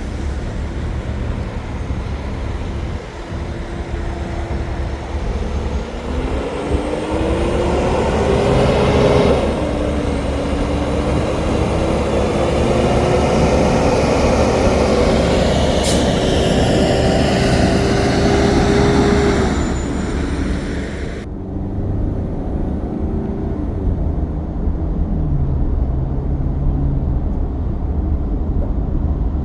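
Heavy-haul Kenworth T800 semi truck's diesel engine pulling under load. The revs climb, drop sharply at a gear change about nine seconds in, and climb slowly again for about ten seconds before easing off to lower running over a steady low rumble.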